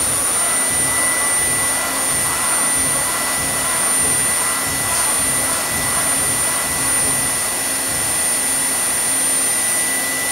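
CNC foam milling machine's high-speed spindle cutting a block of EPS foam: a steady, high-pitched whine over an even rushing noise.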